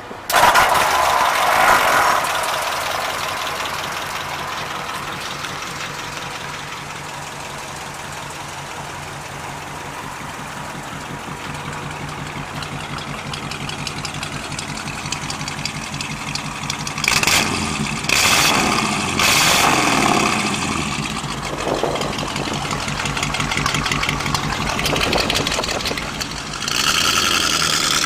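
1947 Mercury's flathead V8 starting just after the beginning and settling into a steady idle. It is blipped several times about two-thirds of the way in, and near the end it picks up as the car pulls away.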